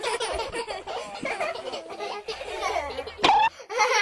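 Children laughing and giggling, several voices at once, with a brief sharp sound a little over three seconds in.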